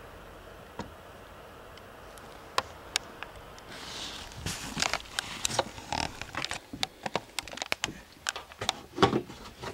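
Handling noise: a few isolated clicks over a faint hiss, then from about four seconds in a busy run of clicks, knocks and rustling as the camera and gear are moved about.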